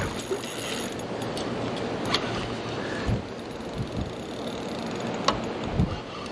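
Steady rushing noise, with a few sharp clicks from a spinning reel being handled.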